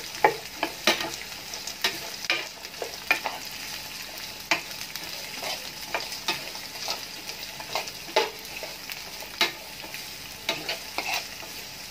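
Diced carrots and green beans stir-frying in oil in a nonstick pan: a steady sizzle, broken by frequent short scrapes and taps of a spatula against the pan.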